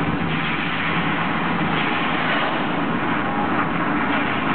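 The Mirage's artificial volcano erupting: a loud, steady rushing noise from its cascading waterfall and flame bursts.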